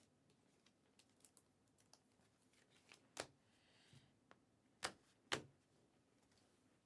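Near silence with a few sharp clicks and taps from cards and small objects handled on a table, the three loudest coming between about three and five and a half seconds in.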